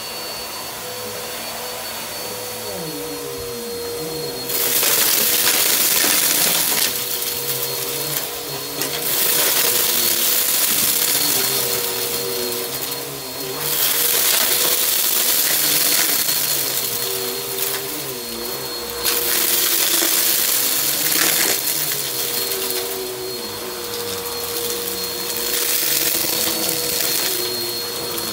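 Bissell bagless upright vacuum cleaner running with a steady motor whine. From about four seconds in, it makes repeated passes over carpet strewn with debris and clumps of hair. Each pass brings a loud rush of crunching and rattling as the debris is sucked up, with quieter gaps between passes.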